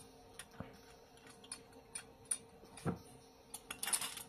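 Thin aluminium beverage cans being handled: a run of light clicks and ticks, a duller knock about three seconds in, and a brief scraping rattle near the end.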